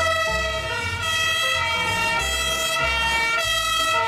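Background music: an electronic melody of held notes stepping from pitch to pitch over a pulsing bass line.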